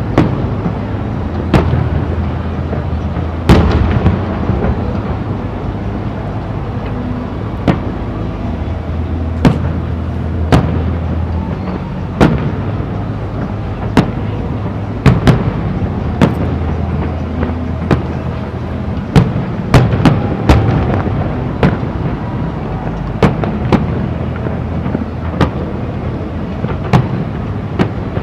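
Aerial firework shells bursting in an irregular series of sharp bangs, one every second or so, some in quick pairs, over a steady low rumble.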